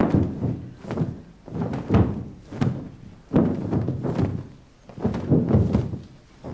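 Large heavy blankets being shaken out and snapped, with repeated dull flaps and thumps of cloth at an irregular pace of about one every half second to a second.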